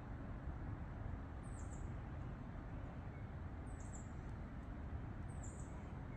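Three brief, very high-pitched animal chirps about two seconds apart, over a steady low rumble of outdoor background noise.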